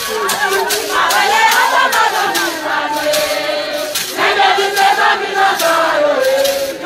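A large crowd of people singing and chanting together, loud, in two long sung phrases with a short break about four seconds in.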